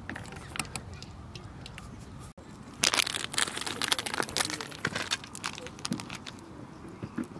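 Wood campfire crackling and popping, with a dense run of loud crackles from about three seconds in that thins out toward the end.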